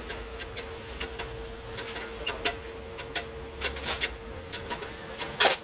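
A small hammer taps a punch against the steel rim of a rewound car air-conditioning compressor magnetic clutch coil housing. The taps are light, quick and irregular, about three or four a second, with one harder blow near the end.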